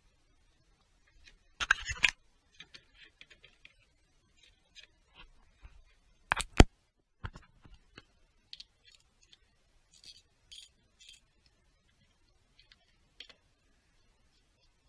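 Hands working on parts in a car's engine bay: scattered clicks and knocks. A loud cluster comes about two seconds in and the sharpest knock comes about six and a half seconds in, with lighter clicks between and after.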